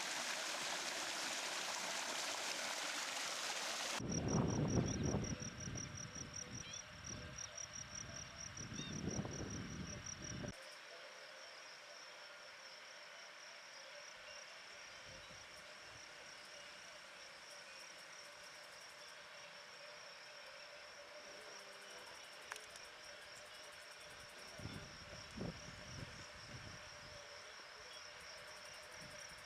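Running water of a stream for the first few seconds, cut off suddenly. Then a steady, high-pitched insect trill like a cricket's runs on, with a few low rumbles.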